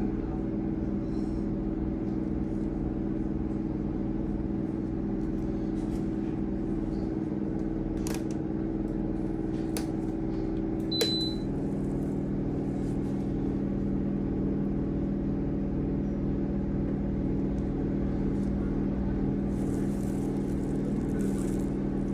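Steady electrical machine hum made of several held tones, part of which drops slightly in pitch about eleven seconds in. Just before the drop come a click and a short high beep.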